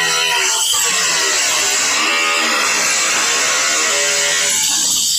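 Angle grinder cutting through the rusty sheet-steel quarter panel of a car, a steady high whine over a gritty grinding noise, its pitch dipping and recovering as the wheel loads in the cut.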